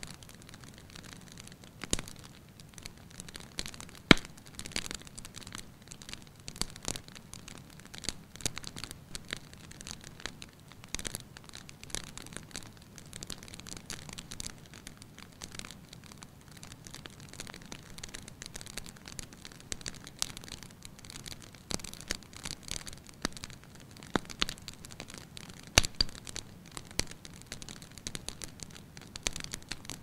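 Wood log fire crackling: a soft hiss of burning wood with frequent irregular snaps and pops, the sharpest about four seconds in and another near the end.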